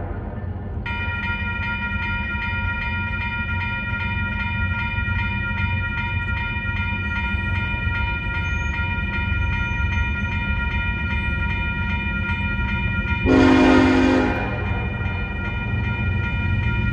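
Railroad grade crossing bell starts ringing about a second in as the crossing lights flash and the gates come down. An approaching locomotive sounds one horn blast of a little over a second, the loudest sound, about thirteen seconds in, over a steady low rumble.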